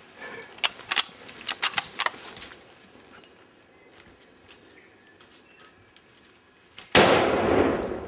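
A few sharp clicks and knocks in the first couple of seconds. Then, about seven seconds in, a single loud rifle shot that echoes and dies away through the bush over about a second.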